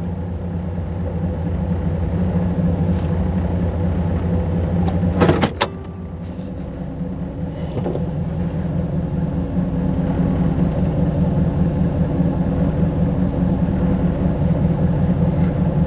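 Warm idle of a 1985 Camaro's 305 Tuned Port Injection LB9 V8, heard from the cabin with the transmission in drive, running steadily with a little idle variation that is normal for this car. About five seconds in there is one brief knock, after which the idle note dips and recovers.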